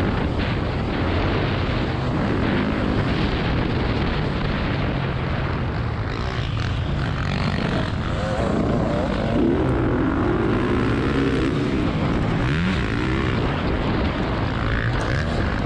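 Motocross bike engine running hard at race pace, its pitch rising and falling as the throttle opens and closes, with a strong rush of wind on the onboard microphone. Other dirt bikes' engines are mixed in close by.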